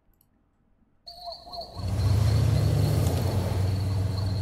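Night-time cartoon soundtrack: crickets chirping steadily with a short owl hoot, starting about a second in. Under them a car engine's low rumble comes in and becomes the loudest sound.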